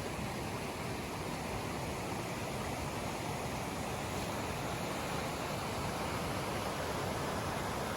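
Steady rushing of a mountain creek, an even wash of water noise with no breaks.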